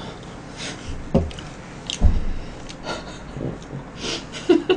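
A woman's breathy exhales, with a few dull thumps and cloth rustling from handling, and a short vocal sound near the end.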